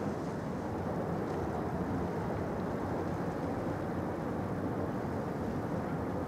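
Steady low rumble of distant engines under a soft hiss, with no separate events.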